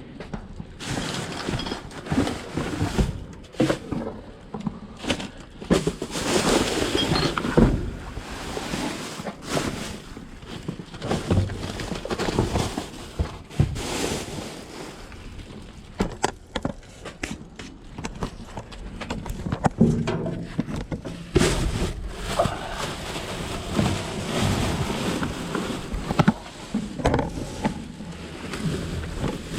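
Handling and rummaging noise as a heavy box is pulled out and gone through: irregular rustling and scraping with many short knocks and thuds.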